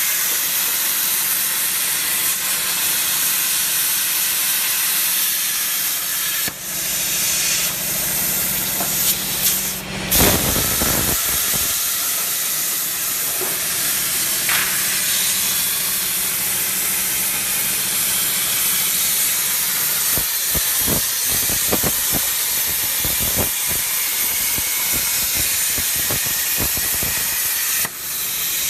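CNC plasma cutting torch cutting steel plate: the loud, steady hiss of the plasma arc and its air jet. A brief louder rumble comes about ten seconds in, and short crackles are scattered through the later part.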